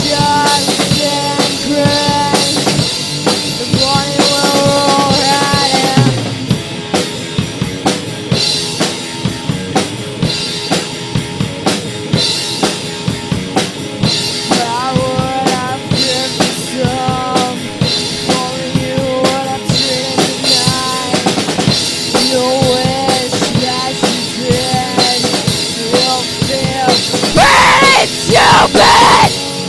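Punk rock cover played by an electric guitar and a drum kit, with no vocals: the guitar plays a riff of held, bending notes over steady bass drum and snare hits. It gets louder near the end.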